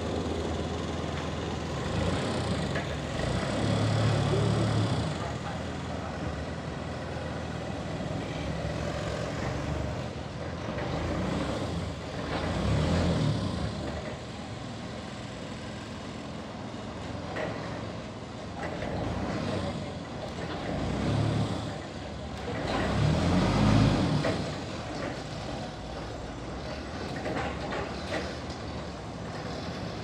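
Sawmill running while sawing a large trembesi log: a steady mechanical drone with rumbling that swells louder and falls back several times.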